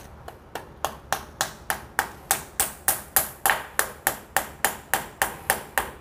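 Small hammer tapping a plastic wall plug into a hole drilled in ceramic wall tile: a steady run of light, sharp taps, about three a second, growing louder after the first couple of seconds.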